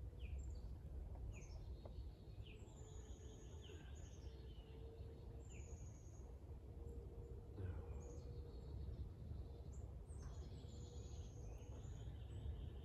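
Wild birds singing: repeated short falling chirps and higher, drawn-out falling whistles every second or two, over a steady low rumble.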